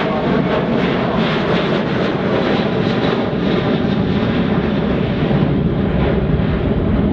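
Boeing P-8 Poseidon's twin turbofan jet engines in flight, a steady loud rushing jet noise.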